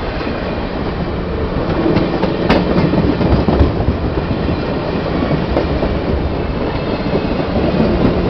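Passenger coaches of a train rolling past at close range: a steady, loud rumble of steel wheels on the rails, with a few sharp clicks, the clearest about two and a half seconds in.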